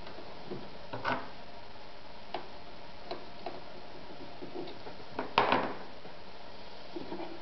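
Scattered small clicks and taps from hands working at the needle and presser foot of a Meister sewing machine. The loudest cluster of clicks comes about five and a half seconds in, and a smaller one about a second in.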